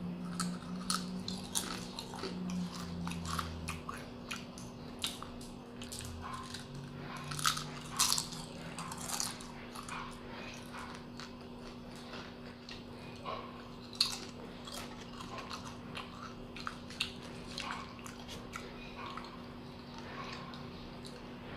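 Close-up eating sounds: crisp fried banana chips being bitten and chewed, with irregular sharp crunches, the loudest about 8 seconds and 14 seconds in.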